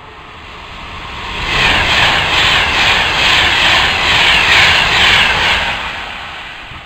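Virgin Pendolino Class 390 electric express passing through the station at speed: a rush of wheel and air noise that builds, stays loud for about four seconds with a regular pulse about twice a second, then fades away.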